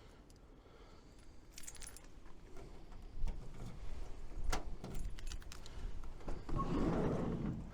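Keys jangling, with a sharp click and bumps and thumps of handling, louder near the end.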